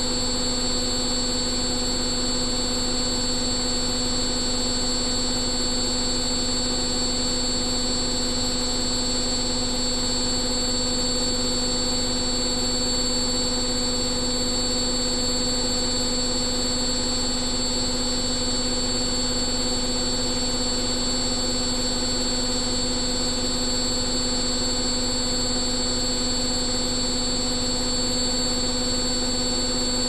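Front-loading washing machine spinning its drum at a constant high speed: a steady hum with a fixed-pitch whine from the motor, unchanging throughout.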